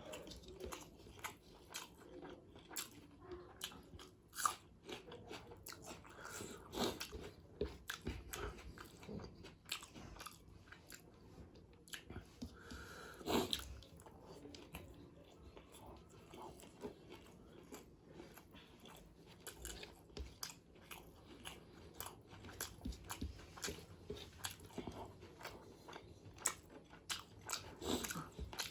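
Close-miked eating of chicken biryani: bites and continuous chewing, with many small irregular crunches and wet mouth clicks. A louder smack comes about thirteen seconds in.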